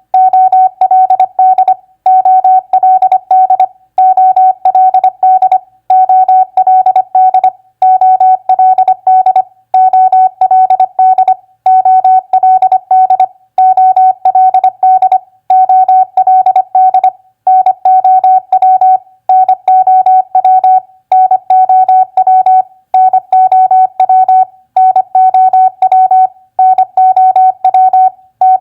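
Morse code sent as a single steady tone keyed on and off at 25 words per minute, spelling common three-letter words. Each word is a quick run of dots and dashes followed by a short pause, about one word every two seconds.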